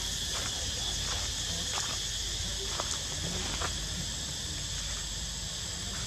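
A steady, high-pitched drone of insects, crickets or cicadas, runs throughout. Over it come a few short crackles of dry leaves and twigs in the first few seconds, as a young macaque walks through leaf litter and handles a stick.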